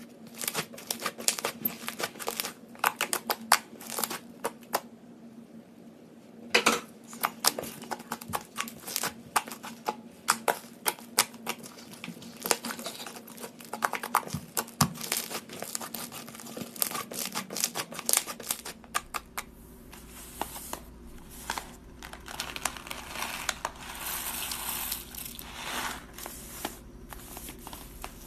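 Thick coffee-brown slime being stretched, pulled apart and pressed by hand, crackling and popping with many small sharp clicks. About two-thirds of the way through, the sound turns to a softer rustling over a low hum.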